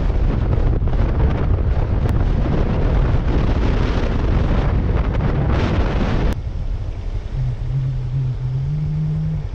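Wind rushing over the microphone of a motorcycle riding at speed, with the bike's engine underneath. About six seconds in it changes abruptly to a quieter stretch where the motorcycle's engine hum is heard, rising slightly in pitch.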